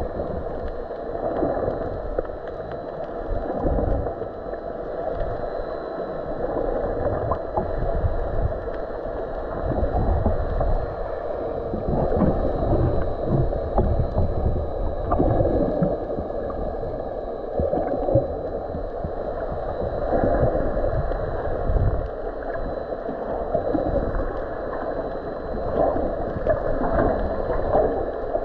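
Muffled underwater noise picked up by a GoPro held below the surface: a dull, steady wash with irregular low rumbles and swells as water moves over the camera.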